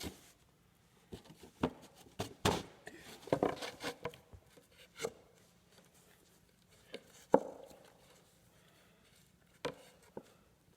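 Wooden knocks and taps as a 2x4 block and a wooden board are handled and lined up, about a dozen irregular hits with a sharp, louder knock about seven seconds in.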